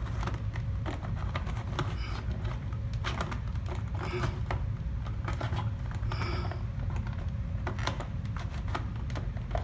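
Irregular plastic clicks and scrapes as a smoke alarm is twisted and seated onto its ceiling mounting plate, over a steady low background hum.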